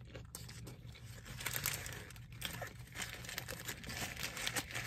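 A paper burger wrapper crinkling while the burger is handled and bitten into, with chewing and scattered small mouth clicks.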